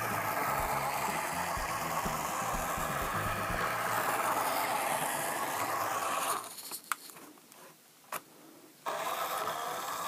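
Small electric motor and plastic gears of a 1970 LEGO set 311 truck whirring steadily as it drives on a tabletop board. About six seconds in the motor stops, two faint clicks follow, and it starts whirring again near the end.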